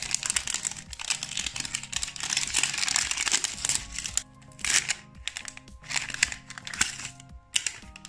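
Thin plastic wrapper crinkling and tearing as it is peeled off a hard plastic ball container, dense for the first half, then a few separate crinkles. Background music plays underneath.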